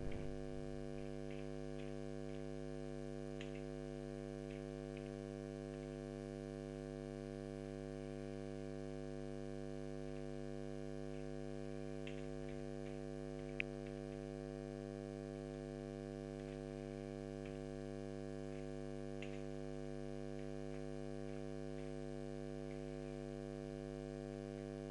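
Steady electrical mains hum, with a few faint scattered clicks from typing on a computer keyboard and one sharper click about halfway through.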